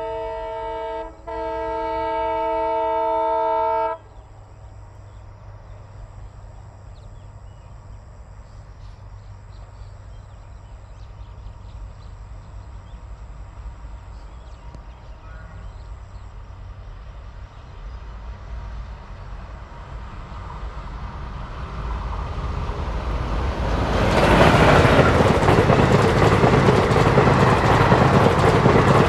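ALCo WDM 3A diesel locomotive sounding its multi-tone horn in two blasts, a short one and then a longer one of about three seconds. The train's rumble then builds as it approaches, and about 24 seconds in gives way to the loud rush of the locomotive and coaches passing at speed.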